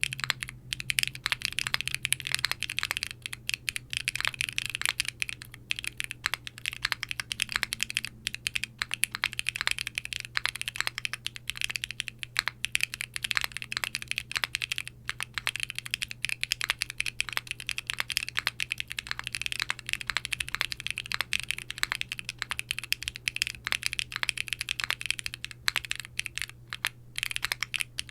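Steady typing on a Qwertykeys Neo60 Core mechanical keyboard with Wuque Studios BigLucky tactile switches, an aluminum plate, no foam, a bouncy gasket mount and GMK doubleshot ABS keycaps. The key presses come as a fast, dense stream of bright clacks with a few short pauses, over a faint steady low hum.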